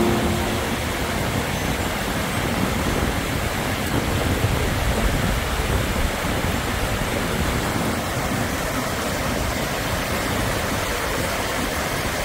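Loud, steady rushing of the glacier-fed White River.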